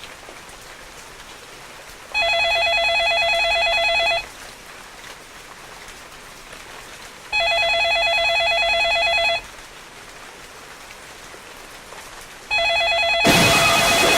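A telephone rings with a fast warbling trill, three rings of about two seconds each, over a steady hiss. A loud rushing hiss comes in over the third ring near the end.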